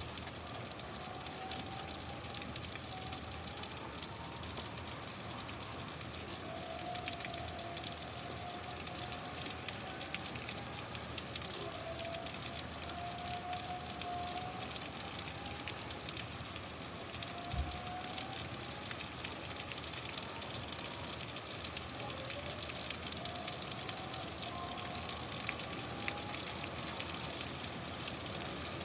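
Steady rain falling, an even hiss throughout. Faint rising tones recur every second or two, and there is a single low thump a little past halfway.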